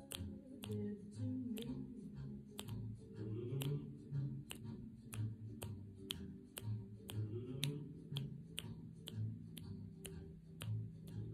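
Background music with a low, stepping bass line and a snapping beat, about two sharp snaps a second.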